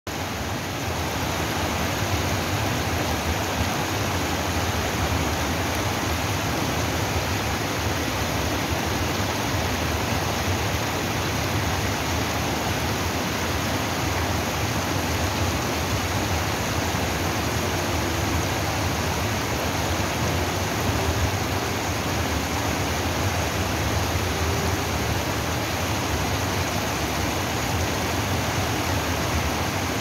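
Shallow stream water rushing over a low rock ledge in small cascades: a steady, really loud rush that never lets up.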